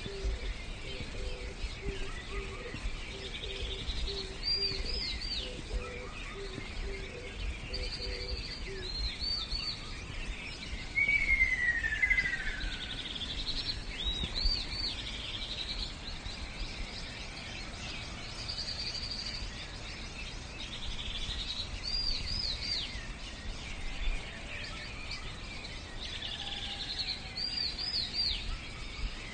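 Birdsong: a bird repeats short high chirping phrases every few seconds, with a louder descending whistled call about eleven seconds in. A low repeated note pulses through the first nine seconds, over a steady low rumble.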